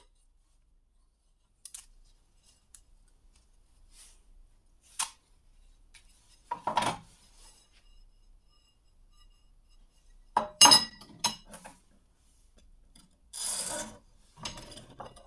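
Scattered handling noises of metal jig parts on a wooden workbench: a few light taps, a short rustle about seven seconds in, sharp metallic clinks around ten to eleven seconds, and a scraping rub near the end as a metal clamp ring is fitted onto a knife blade.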